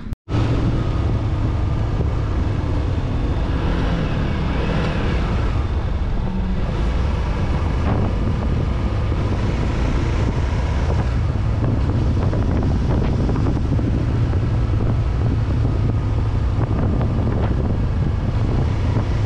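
Motorcycle under way in a road tunnel, its engine running steadily beneath heavy wind noise on the camera microphone.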